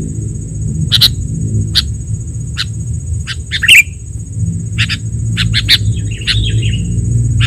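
Recorded sooty-headed bulbul (kutilang) calls used as a lure: short, sharp chirps, irregular at first and coming faster in the second half, with a brief run of chatter about six seconds in. Underneath run a steady high-pitched hiss and a low rumble.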